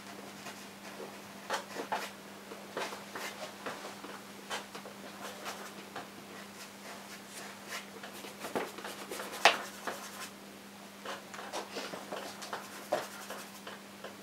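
Oil-paint brush working on a stretched canvas: irregular short, scratchy strokes and dabs, with one sharper tap about nine and a half seconds in, over a steady low hum.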